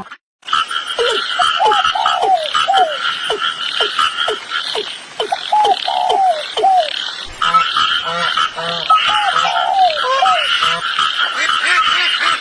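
Frogs calling in a chorus: many short calls, each falling in pitch, repeated over a steady higher-pitched background chorus, with a low rhythmic pulsing joining about seven seconds in.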